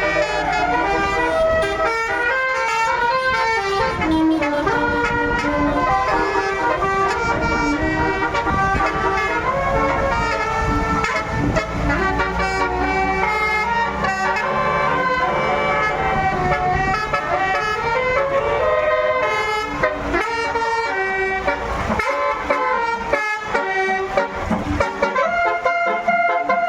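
A bus's basuri telolet horn, an electric multi-tone horn, playing a continuous melody of shifting notes. A low engine rumble runs underneath and drops away near the end.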